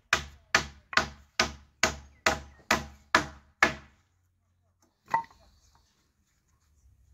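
Hammer blows on fresh wooden boards: nine even strikes about two a second, then they stop. One more single knock comes about five seconds in.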